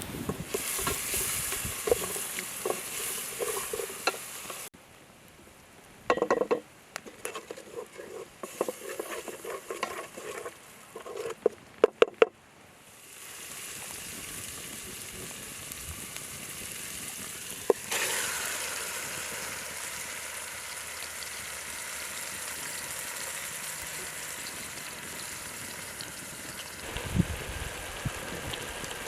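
Food frying in a pan, a steady sizzle with a scrape of stirring, broken by a few sharp knocks of a utensil against the pan about halfway through. The sizzle jumps louder near two-thirds of the way in, as fresh food hits the hot pan.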